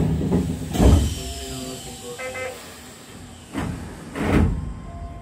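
Keisei electric commuter train running slowly, heard from inside the driver's cab. Three short loud rushes come about one second in and twice near the end, with a brief electronic beep about two seconds in.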